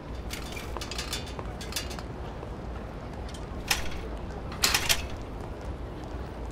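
Clicks and rattles of an old bicycle being handled and parked. A sharp clack comes a little before the four-second mark and a brief, louder clatter about a second later.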